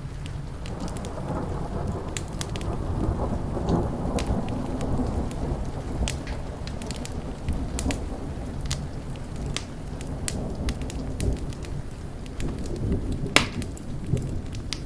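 A thunder rumble rolling under steady rain, swelling in the first few seconds and easing off, while a wood fire crackles and pops throughout, with one sharp, louder pop near the end.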